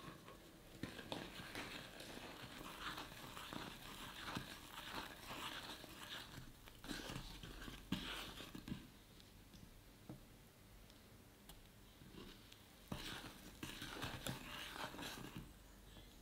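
Wooden spatula stirring and scraping a thick, frothy honey mixture in a stainless steel saucepan: soft, irregular stirring noise that eases off for a few seconds past the middle and picks up again near the end.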